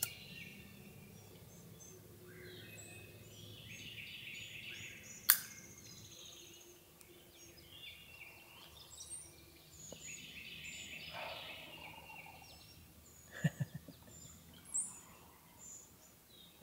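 A wild turkey gobbling once in the distance about eleven seconds in, over songbirds chirping and calling throughout. A single sharp click about five seconds in is the loudest sound.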